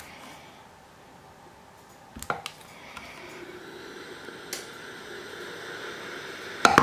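Steam iron with a few sharp clicks as its controls are handled, then a faint steady hiss that builds from about three seconds in as the iron starts letting out steam without the steam button being pressed. A sharp knock comes at the very end.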